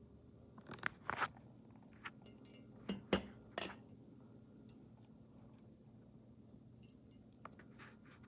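Irregular light clicks, taps and clinks of small hard objects being handled, bunched in a burst in the first half and a few more near the end.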